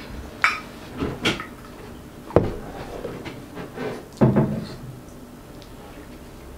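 A few short knocks and clinks as a plastic water bottle and a small drinking glass are handled and set down on a wooden table.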